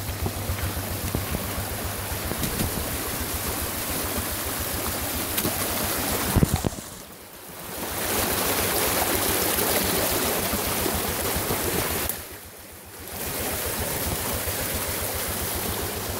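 Rushing stream water after heavy rain, with a small engine running steadily underneath. The sound drops away sharply twice, briefly each time.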